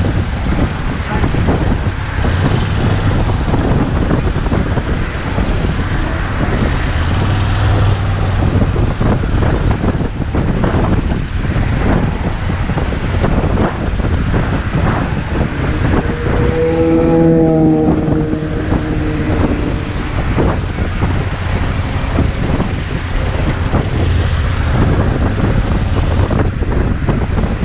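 Wind rushing over the microphone of a motorcycle being ridden in the rain, over steady engine and road noise. About two-thirds of the way through, a brief steady pitched tone sounds.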